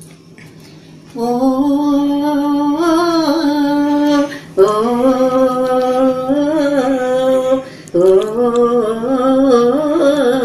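A woman singing without words, three long held phrases with the pitch wavering slowly up and down.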